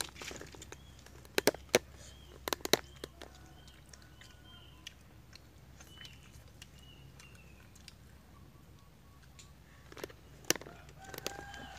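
Sharp clicks and taps from eating off plates and handling tamarind-fried balut eggs, in two quick clusters in the first three seconds and once more near the end. Birds chirp faintly in between.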